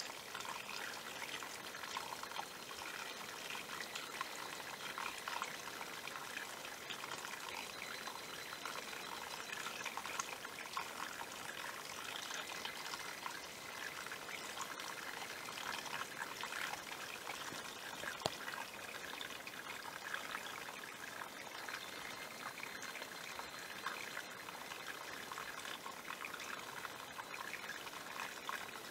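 Small hillside stream trickling and pouring over rocks, a steady continuous water sound.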